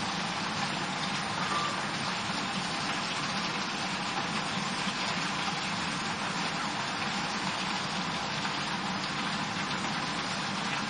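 Sliced pumpkin and potato frying in hot mustard oil in a frying pan, sizzling steadily.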